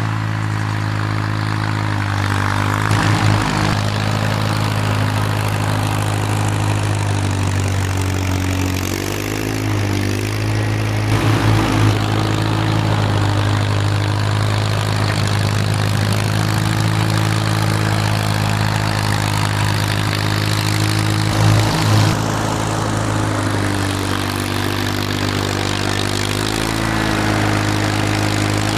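1948 Farmall M tractor's four-cylinder engine running steadily under load while it pushes snow with its front loader, its pitch shifting a few times as the throttle and load change. A few brief clunks stand out along the way.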